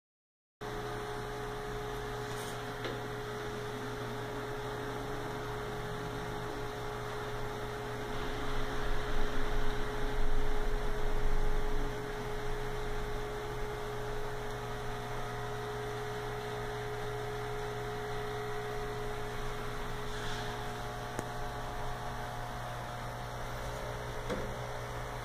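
Steady electrical hum of aquarium equipment, starting about half a second in, with a stretch of louder, rougher noise a few seconds in the middle.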